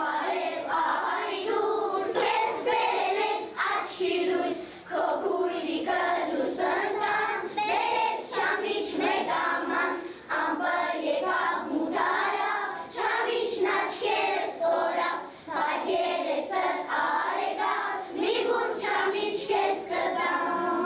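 Children's choir singing a song together in short phrases, with brief gaps between lines.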